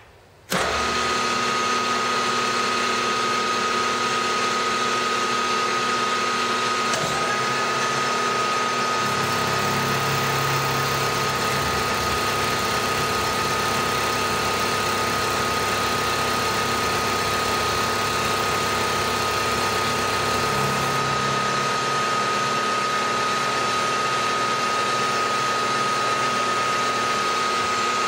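Milling machine switched on about half a second in, its spindle then running steadily with a high whine. An indexable face mill cuts along the side of a metal block clamped in a vise, adding a lower hum from about nine to twenty-one seconds, when it is in the cut.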